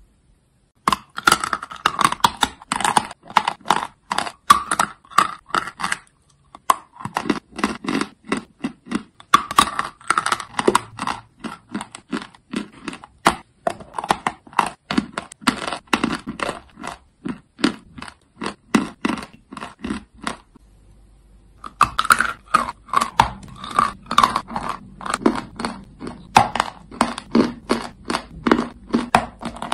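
Chalk being bitten and chewed close to the microphone: a dense run of sharp crunches, several a second, with two short breaks about six and twenty seconds in.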